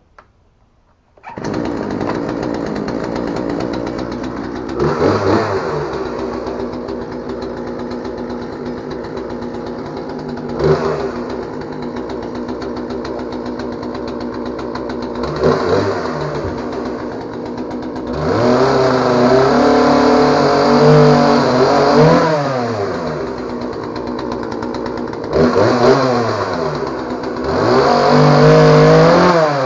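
Poulan Pro PR4218 two-stroke chainsaw running, starting about a second in. It idles with several short throttle blips, then twice holds at high throttle for a few seconds with the pitch wavering under load, as when cutting a branch.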